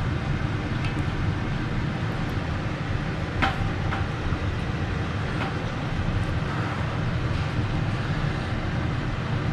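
A steady low rumble, with a few faint short clicks over it, one about three and a half seconds in.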